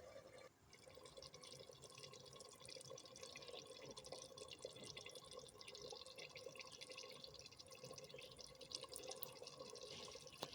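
Faint, irregular dripping and trickling of liquid as palm kernel oil is strained from the boiled kernel paste.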